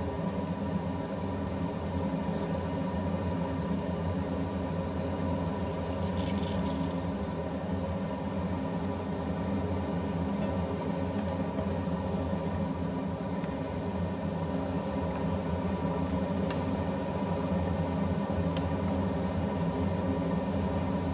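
Steady, even appliance hum at the stove, with a few faint clicks as mushrooms are handled into the pot and stirred.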